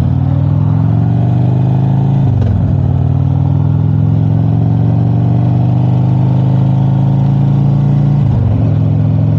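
Motorcycle engine pulling under load on the move, its pitch climbing slowly as the bike accelerates. It dips briefly and picks up again twice, about two seconds in and near the end, as the rider shifts up a gear.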